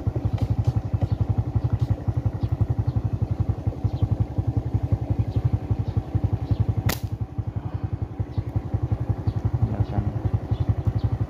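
Motorcycle engine running steadily with an even, fast pulse, and a single sharp click about seven seconds in.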